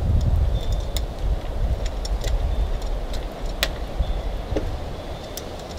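Ribbed metal fiberglass laminating roller worked back and forth over a wet epoxy and 1708 biaxial cloth patch, giving scattered clicks and light rattles as it rolls the resin into the cloth to saturate it. A low rumble runs underneath and fades toward the end.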